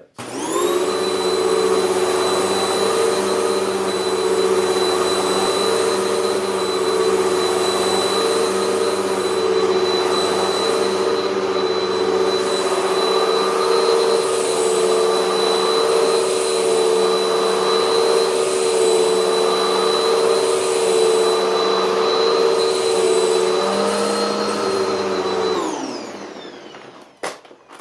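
A 2011 Hoover WindTunnel Max upright vacuum switched on and run over carpet: the motor spins up fast, then runs with a steady whine, its brush roll turning against the pile. About 24 seconds in it is switched off and winds down over a couple of seconds, followed by a single click.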